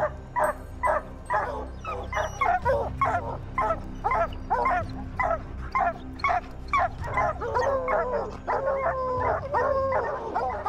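Hunting hounds barking in a rapid series, about two or three barks a second, turning into longer drawn-out bays in the last few seconds: the baying of dogs holding a cornered mountain lion.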